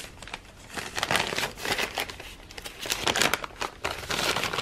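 Brown paper bag crinkling and rustling as it is unfolded and pulled open by hand, in several short crackly bursts.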